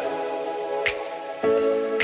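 Background music: soft electronic music with held chords that change about one and a half seconds in, and a short high swish just before.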